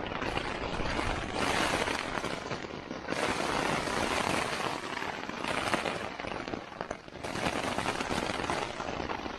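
Storm rain and gusting wind beating on a nylon tent's fabric, heard from inside the tent: a dense crackling patter that comes in surges.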